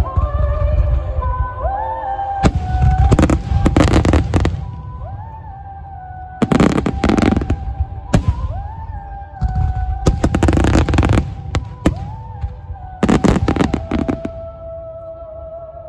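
Aerial firework shells bursting in rapid volleys, four waves of dense bangs and crackle, over music with long held notes that slide up into each new note.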